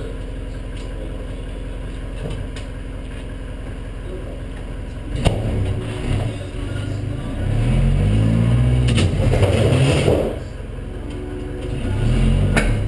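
A vehicle engine runs steadily, then from about five seconds in is revved up and down several times, louder, before settling back and rising again near the end.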